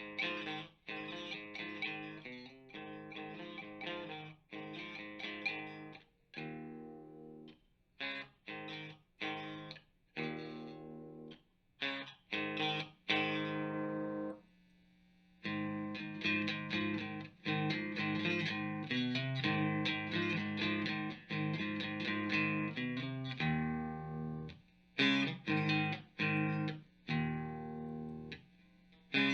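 Overdriven electric guitar played through an amp and speaker cabinet: distorted chords and riffs in short choppy phrases and a few held chords, with brief breaks between.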